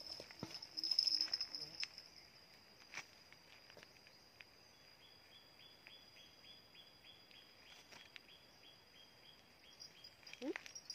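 A fishing rod's bite bell jingling faintly in a run of rings, about three a second, from about four to nine seconds in. It could mean a fish on the line or the rod being bumped. Footsteps on dirt sound in the first two seconds, over a steady high insect drone.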